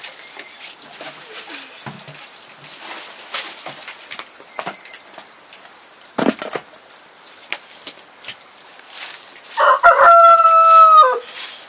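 A rooster flaps its wings and then crows once near the end, one loud crow of about a second and a half. Before it there are only faint scattered knocks and rustles.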